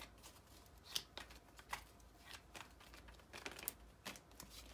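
Faint hand shuffling of a tarot deck: scattered soft flicks and rustles of cards.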